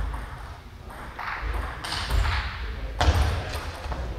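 Table tennis serve and rally: the celluloid-type ball clacking off rubber-faced paddles and bouncing on the table, in short sharp knocks.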